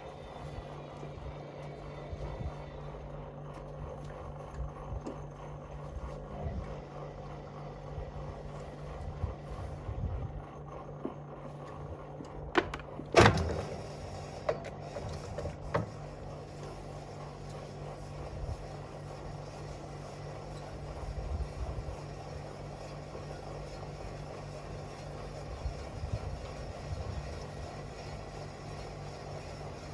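Whirlpool washing machine running with a 6 L water bottle in the drum: a steady motor hum under irregular low thuds, with a sharp knock about 13 seconds in and smaller ones just before and after.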